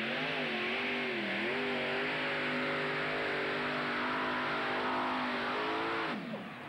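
Multi-engine modified pulling tractor's supercharged engines running hard under load, the pitch wavering up and down. About six seconds in the revs fall away steeply as the engines are throttled back.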